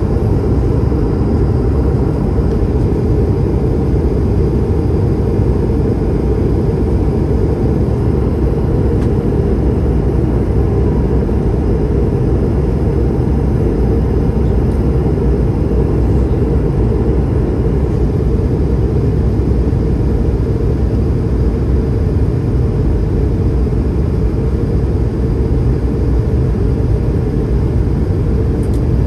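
Steady low rumble inside the cabin of an Airbus A220-300 in flight: airflow over the fuselage and the Pratt & Whitney PW1500G geared turbofan engines running.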